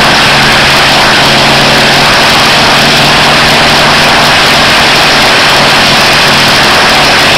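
Rare Bear's Wright R-3350 eighteen-cylinder radial engine and four-blade propeller in a ground run-up at a high power setting, very loud and steady.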